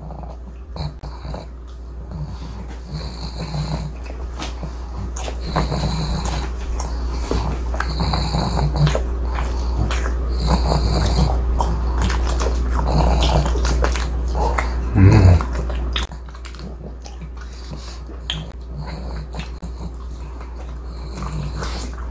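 Close-up mouth sounds of a person chewing a chewy egg tart, mixed with a pug's snorting, snuffling breaths. There is one louder, short low-pitched sound about fifteen seconds in, over a steady low hum.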